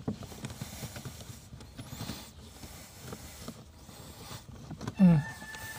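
Cabin air filter being pushed and worked into its plastic housing behind a Nissan Almera's glovebox: light scraping, rustling and small irregular clicks of filter pleats and plastic under the hand. A short voice sound comes about five seconds in.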